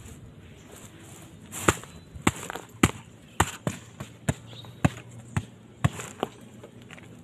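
A run of about ten sharp knocks, roughly two a second, starting about a second and a half in, while a load of sacks on a motorcycle is being handled and roped down.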